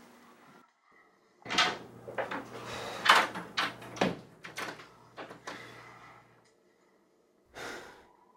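A wooden interior door being shut with its brass doorknob turned: a run of sharp clicks and knocks from the knob and latch, the loudest about three seconds in, followed near the end by a brief noisy rustle.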